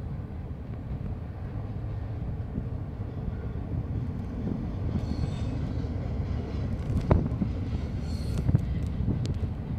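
Double-stack container train's cars rolling past, a steady low rumble of wheels on rail with a sharp clack about seven seconds in. Brief faint high wheel squeals come twice in the second half as the cars take the curve.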